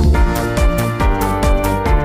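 Electronic background music with a steady beat and synth notes.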